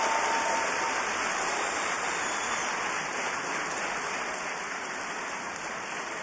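Studio audience applauding, a dense even clapping that slowly dies down.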